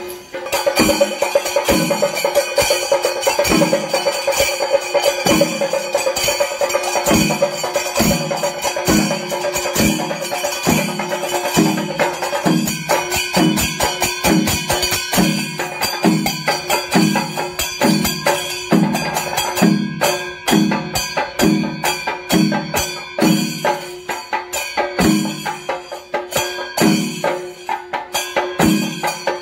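Kerala temple percussion ensemble playing: drums beat a steady pulse of about three strokes every two seconds under a continuous bright clash of ilathalam hand cymbals. A sustained high note runs through the first dozen seconds, then fades.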